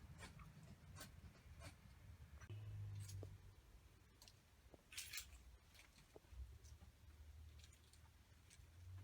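Near silence: faint room tone with a low rumble and scattered small clicks and rustles, with one brief hiss about five seconds in.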